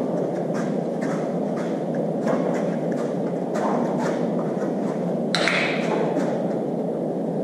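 Steady rushing room noise, with light irregular taps and a short rustle about five seconds in.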